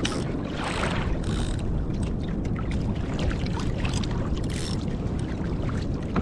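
Wind buffeting the microphone over ocean water lapping and splashing against a kayak hull, with many small irregular splashes.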